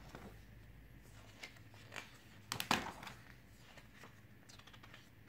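Stiff pages of a ring-binder photobook being turned by hand: soft paper rustles, with a louder cluster of page flaps and taps about two and a half seconds in.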